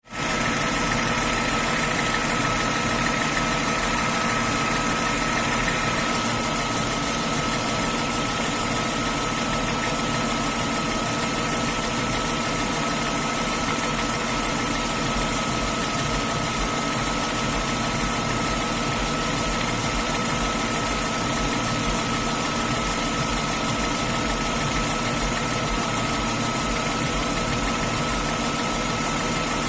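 BMW M52 straight-six engine idling with a steady, rhythmic knock. A steady high whine runs alongside it.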